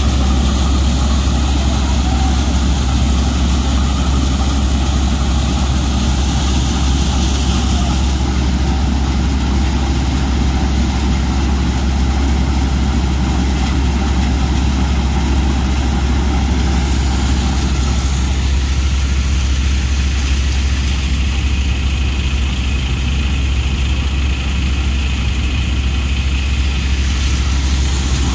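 Tractor-driven threshing machine running steadily with the tractor's engine, a constant loud drone with a strong low hum.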